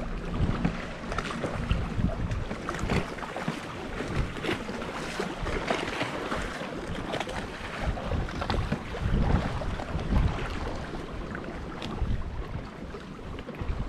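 Wind gusting on the microphone while choppy waves slap and splash against the hull of an Old Town fishing kayak.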